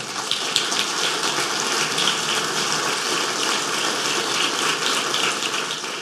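Lecture audience applauding: steady, dense clapping that begins to fade near the end.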